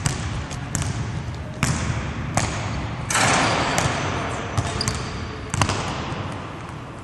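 Basketballs bouncing on a hardwood gym floor: several sharp, irregularly spaced thuds that echo in the large hall. About three seconds in, a louder noisy rush lasts about a second.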